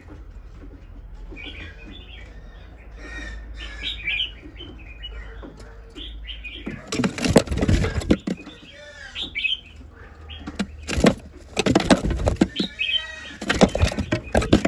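Male Chinese hwamei chirping and giving short calls, with loud bursts of fluttering and knocking from about seven seconds in.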